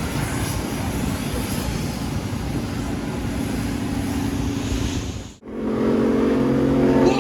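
Performance car engines running with a steady rumble. The sound drops out sharply about five seconds in, and then a louder engine drones at a steady pitch.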